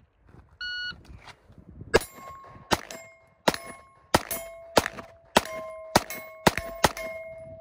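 A shot timer's start beep, then about a second later a pistol fires a string of about ten shots at a steady pace of roughly two a second. Each shot is answered by the ring of a steel target, and the last ring hangs on.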